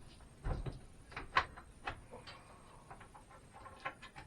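A few sharp metal knocks and clicks, the loudest about a second and a half in, from the saw's mounting brackets and bolts being shifted and set on the stand.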